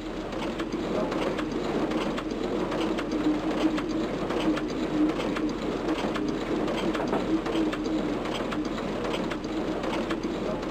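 A steady, slightly wavering low hum with a run of faint, regular clicks over it, a mechanical sound effect under the opening title cards.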